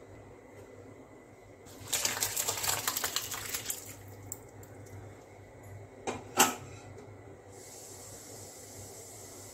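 Curdled milk and whey poured into a cloth-lined strainer: a splashing, crackling rush lasting about two seconds. About two seconds later come two sharp knocks close together.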